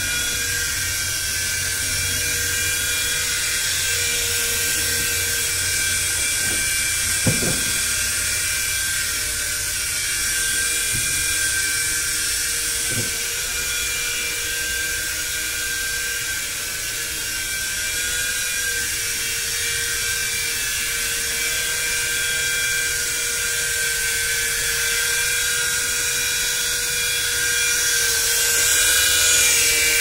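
WLtoys V911 fixed-pitch RC helicopter in flight: a steady, high-pitched whine from its small electric motors and spinning rotors. There is a brief click about seven seconds in, and the whine grows louder near the end.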